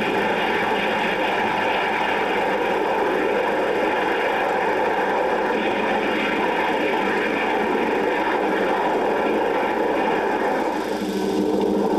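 Four-engine jet airliner taking off, its engines a steady rush of noise. Music comes in near the end.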